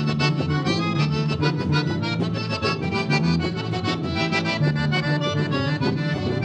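Accordion-led band playing an instrumental vaneira, the accordion carrying a quick melody over a steady bass and rhythm.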